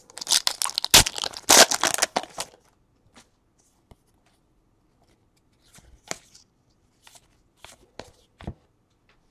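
A foil trading-card pack wrapper torn open and crinkled for about the first two and a half seconds, then scattered soft clicks and slides of cards being flipped through by hand.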